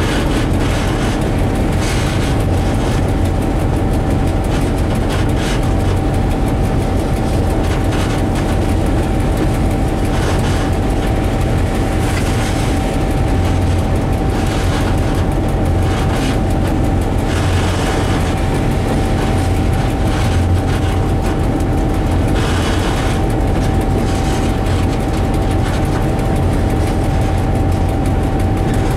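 Diesel locomotive moving along the track as heard from its cab: a steady low engine rumble, a constant high tone, and wheel-and-rail noise that rises in occasional louder rushes every few seconds.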